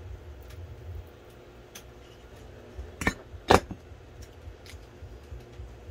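Two sharp metallic clicks about half a second apart, a little past the middle, the second louder, from small metal tools at a soldering bench, over a low steady hum and a few faint ticks.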